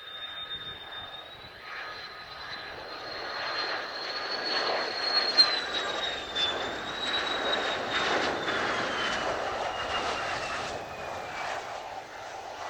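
Mitsubishi F-2 fighter's single F110 turbofan: a high jet whine over a rushing roar. It grows louder for the first half, then eases off, with the whine's pitch sliding down in the second half.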